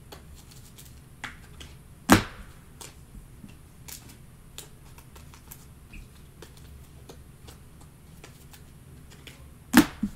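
Trading cards and pack wrappers being handled, with scattered light clicks and two sharp knocks on the table, about two seconds in and near the end.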